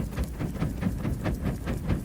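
Campfire crackling: frequent sharp pops and snaps, several a second, over a low steady rumble.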